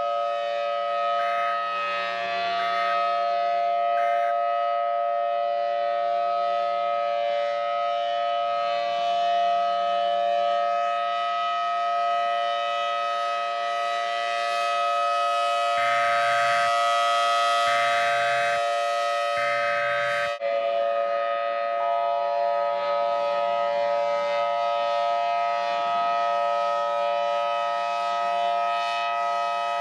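Civil defense siren sounding a steady, unwavering chord of several tones. About twenty seconds in, the pitches shift to a slightly different chord, and a few short extra notes sound just before the change.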